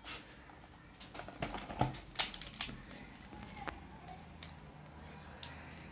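A scattered series of light clicks and taps, as of small objects being handled and set down, most of them in the first half, over a faint low hum.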